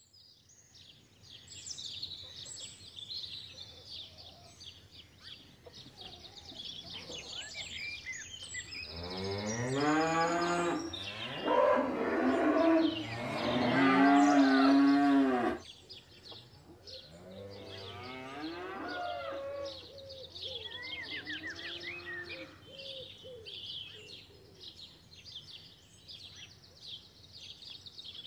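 Cows mooing over continual birdsong. A run of loud, long moos, several overlapping, starts about a third of the way in and breaks off abruptly about halfway, followed by a few fainter moos. Small birds chirp throughout.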